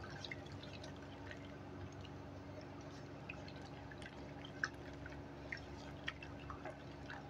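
Faint wet squishing and scattered small clicks of a hand working flour into whipped ghee and milk in a metal bowl, mixing ghevar batter. A low steady hum lies underneath.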